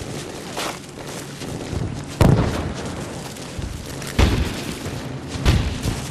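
War-film battle soundtrack played over loudspeakers in a hall: deep explosion booms and gunfire over a low rumble, with three loud booms about two, four and five and a half seconds in.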